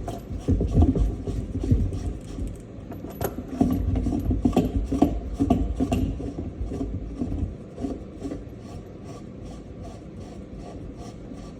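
Faucet mounting hardware being turned and worked by hand: irregular scraping and rubbing with light clicks, busier for the first several seconds and quieter after.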